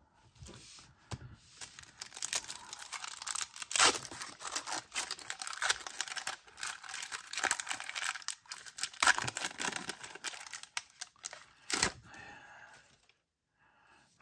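Foil wrapper of a 1991 Upper Deck football card pack being torn open and crinkled, with sharp crackles throughout. It dies away a little before the end.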